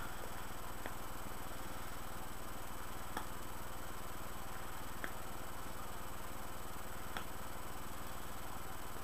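Faint, short lip smacks about every two seconds from someone puffing on a curved tobacco pipe, over a steady hiss and hum.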